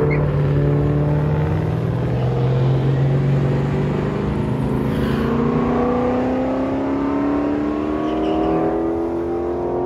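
2018 Ford F150's 5.0 Coyote V8, through a Borla Pro XS muffler, launching off the drag strip start line at full throttle and pulling away down the quarter mile beside a second car. The engine note jumps at the launch, then climbs steadily as the truck accelerates away.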